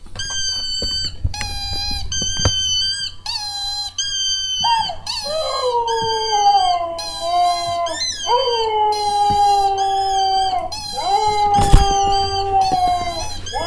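A rubber squeak toy squeaking over and over, about twice a second. From about five seconds in, a dog howls in long notes of two to three seconds each that slide downward in pitch. There is a single loud knock near the end.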